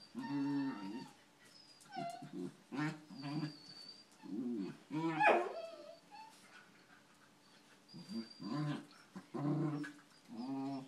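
Dogs vocalizing in rough play: a run of short growling and whining calls, with a louder whine that rises and falls about five seconds in, and a lull of a couple of seconds after it.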